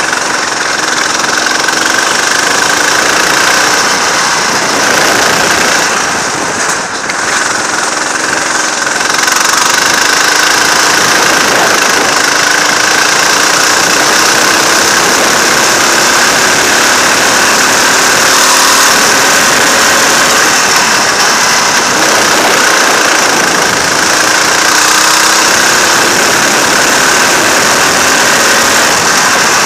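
Go-kart engine running hard, heard from a camera mounted on the kart, its pitch climbing several times as the kart accelerates out of corners, with a brief drop about a quarter of the way in as it slows for a bend. A steady rushing noise runs under it.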